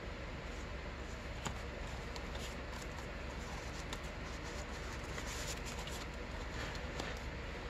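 Paper and card stock rustling and sliding as tags and pages of a handmade junk journal are handled, with small taps and scrapes scattered through, over a steady background noise.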